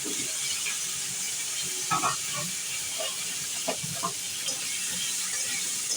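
Potatoes frying in hot oil in a pan, a steady sizzling hiss, with a few short knocks about two to four seconds in.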